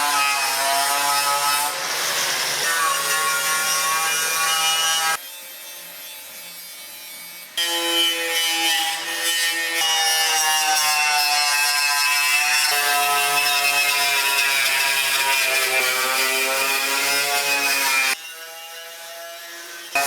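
Power tool whining steadily on bodywork, its pitch wavering and shifting as the load changes. It drops away twice for a couple of seconds.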